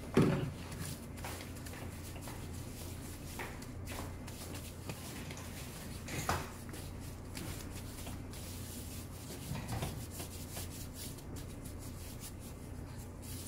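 Gloved hands rubbing oil into a bare foot in a massage: a soft, steady rubbing, with a few brief louder rustles at the start, about six seconds in and about ten seconds in.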